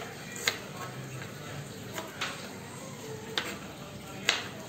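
Kitchen knife slicing shallots on a plastic cutting board: five sharp, irregularly spaced knocks as the blade strikes the board.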